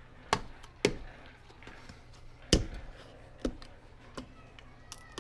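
Irregular sharp knocks and clicks, about six of them, the loudest about two and a half seconds in: things being handled and set down during an oil change.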